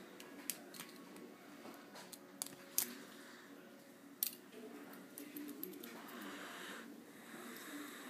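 Steel snake rake working the pins of a Master Lock No. 140 pin-tumbler padlock: light scraping with a scattered series of sharp metallic clicks, the loudest a little under three seconds in and again about four seconds in.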